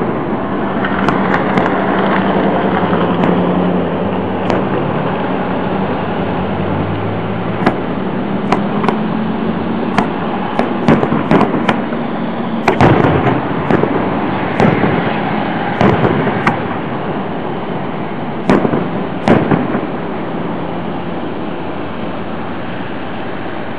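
Aerial firework shells bursting in a long series of sharp bangs. The bangs come thickest from about a third of the way in until near the end, often several in quick succession, over steady background noise.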